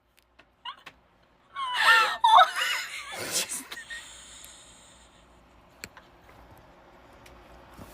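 A person's high-pitched wheezing laughter and gasps, breaking out about a second and a half in and dying away after a couple of seconds.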